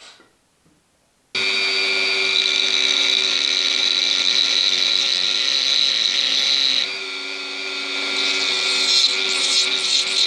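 Dremel-type rotary tool with a thin cut-off disc switching on with a sudden, steady high whine. About two-thirds of the way through it drops a little in level. Near the end a rough grinding hiss joins as the disc bears on a brass cylinder, which its user reckons is not cutting.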